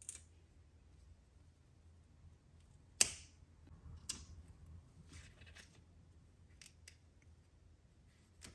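Scissors snipping through sweet potato vine stems: a series of short, sharp snips, the loudest about three seconds in, with fainter ones after.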